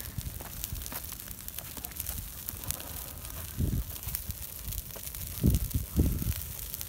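Dry grass burning, crackling with many small sharp pops over a steady hiss. A few dull low thumps come about halfway through and twice near the end.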